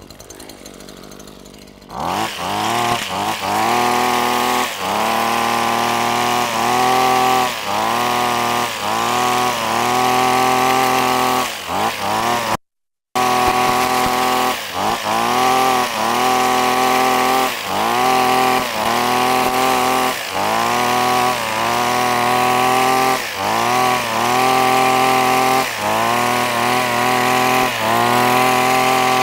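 Webb petrol pole hedge trimmer's small engine running at high revs while cutting a box hedge. The revs dip and climb back about once a second as the throttle is worked through each pass. It comes in abruptly about two seconds in and drops out briefly about a third of the way through.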